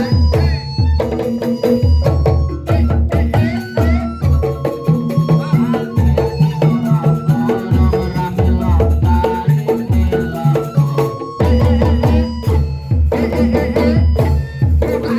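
Traditional folk music: hand drums beat a busy rhythm under melodic pitched instruments.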